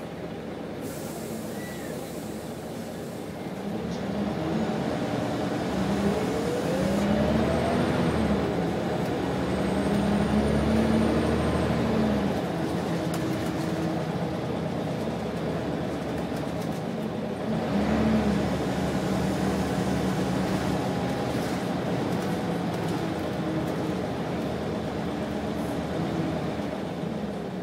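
Scania bus engine heard from inside the cabin of a Wright Solar single-decker, pulling away about four seconds in. Its note climbs and drops through gear changes, then pulls up again about eighteen seconds in as the bus accelerates once more.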